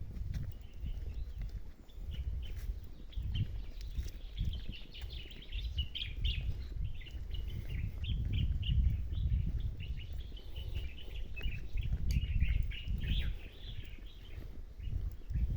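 Small birds chirping and twittering continuously, many short calls overlapping, over an uneven low rumble.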